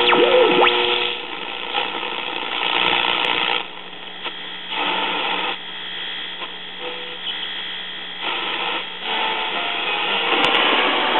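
1961 Zenith AM tube clock radio being tuned across the band: hiss and static that change as the dial moves, with whistles gliding in pitch in about the first second as carriers are passed. Faint distant stations try to creep in through the noise.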